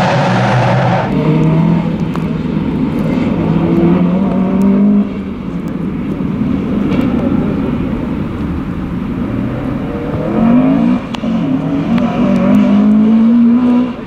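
Racing car engines accelerating hard, revving up in rising sweeps with sudden drops at gear changes. The loudest is near the end: an engine climbing through the revs, dropping once, then climbing again.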